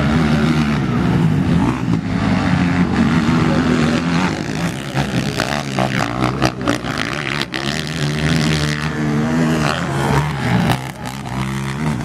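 Race quad (ATV) engines revving hard and accelerating, the pitch climbing and dropping as the riders work the throttle through the track. Sharp crackles come through between about four and eight seconds in.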